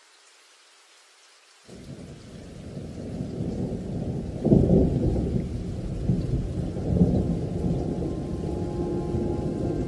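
A deep, thunder-like rumble in the background music. It starts suddenly about two seconds in and grows louder, with heavier surges around the middle.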